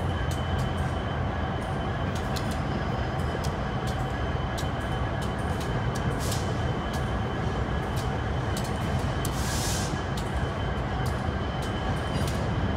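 Long Union Pacific intermodal freight train rolling slowly past: a steady low rumble with frequent, irregular sharp clicks, and a short hiss about three-quarters of the way through.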